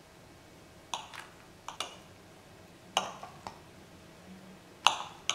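Kitchen knife cutting a slab of set halwa on a ceramic plate, the blade clicking against the plate about seven times as each cut goes through.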